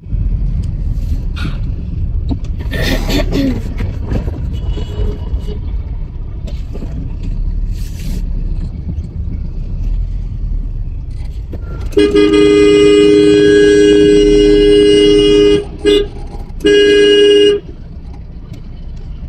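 Steady vehicle engine and road rumble in slow street traffic. About twelve seconds in, a vehicle horn sounds one long blast of nearly four seconds, then a short toot and a second blast of about a second.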